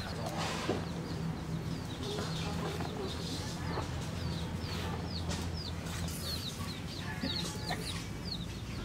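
Domestic chickens peeping and clucking: a steady run of short, high, falling peeps, about two a second, over a low steady hum.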